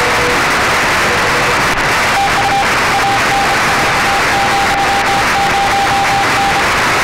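Morse code (CW) signals on the 20-metre amateur band heard through a radio receiver over a steady hiss of band noise. A lower-pitched tone keys briefly near the start, then a higher-pitched station sends a run of dots and dashes from about two seconds in until near the end. The signal is weak, and a better antenna would give a stronger one.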